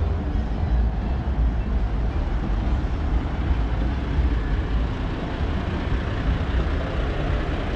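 Low, steady rumble of idling diesel truck engines, with no sharp events.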